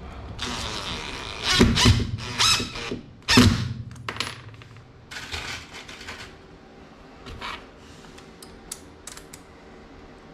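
Metal hardware clattering and clinking in several loud rattling bursts, the loudest about one and a half, two and a half and three and a half seconds in, then a few light clicks and taps.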